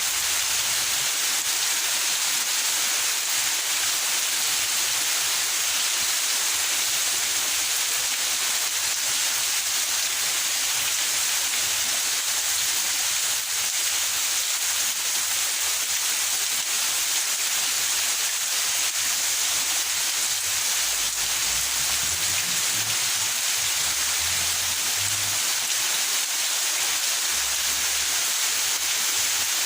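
Steady rain falling in a backyard: an even, unbroken hiss of drops.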